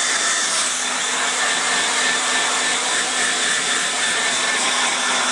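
Hair dryer blowing steadily and quite noisy: a constant rush of air with a faint steady whine in it.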